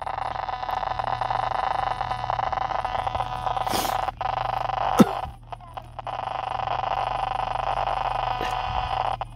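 Sound from an analog TV set's speaker pulling in a weak, distant UHF broadcast: a steady buzz over hiss, cutting out briefly near four seconds and again for about half a second after a sharp click around five seconds in.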